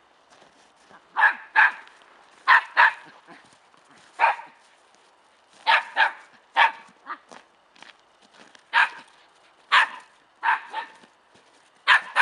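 Young Border Terrier barking in play: about a dozen short, sharp barks, often two in quick succession, with pauses of a second or more between them.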